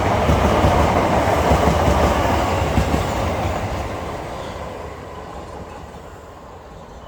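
Class 375 Electrostar electric multiple unit running through the station, its wheel-on-rail noise loud for about three seconds, then fading steadily as it moves away.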